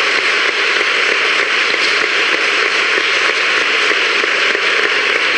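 Audience applauding: dense, steady clapping that keeps going without a break.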